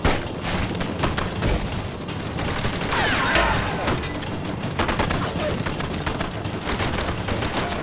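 Heavy gunfire: many rapid, overlapping shots, with a submachine gun firing in bursts, as in a staged film gun battle.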